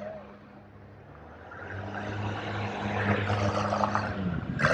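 Diesel engine of a Sherp amphibious ATV running with a steady hum, getting louder from about two seconds in. Its pitch dips briefly near the end.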